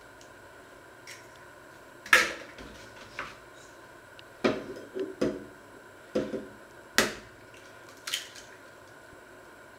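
Kitchen items knocked and set down by hand: a string of about nine light knocks and clinks at uneven intervals, the sharpest about two seconds in and several close together in the middle.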